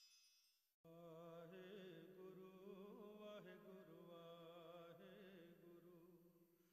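A faint voice chanting in long held notes that waver and bend in pitch, coming in just under a second in and fading out near the end.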